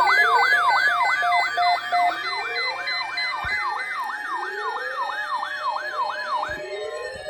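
Electronic emergency siren on a fast yelp, about three falling sweeps a second, layered with a slower wail that rises every couple of seconds. Near the end the yelp stops and a single tone begins a long fall in pitch as the siren winds down.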